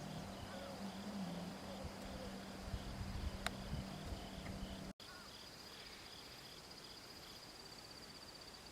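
Crickets or other insects trilling and chirping continuously, one high steady trill and one pulsing chirp. A low steady hum with some rumble sits under them and stops at an abrupt break about five seconds in, after which only the insects remain, a little quieter.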